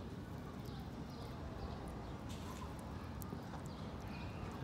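A gull pecking at pieces of chicken on a ledge, its beak giving irregular sharp taps and clicks, over a steady low rumble of wind on the microphone.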